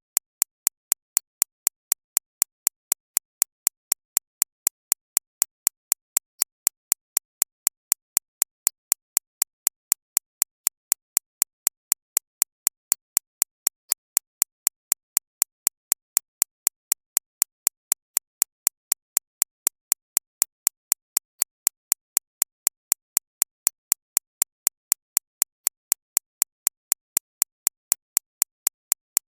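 Digitally synthesized recreation of a shockwave therapy (ESWT) machine's impacts: a steady train of sharp clicks, about three a second, evenly spaced and brightest in the high treble.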